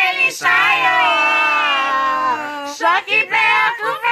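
Voices singing. One long held note lasts about two seconds, followed by shorter sung phrases near the end.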